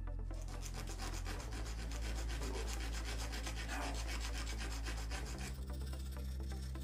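A small hand file rasping back and forth in quick strokes on a thin piece of softened spring steel cut from an old handsaw blade. The filing stops near the end.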